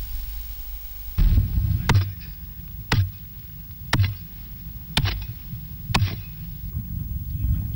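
A hand hoe chopping into dry red soil, five sharp strikes at about one per second starting a second or two in, over a low rumble.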